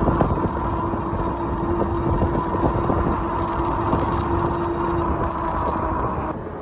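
Riding noise from a 500-watt e-bike at speed: wind and road rumble with a steady motor whine, which stops about five to six seconds in.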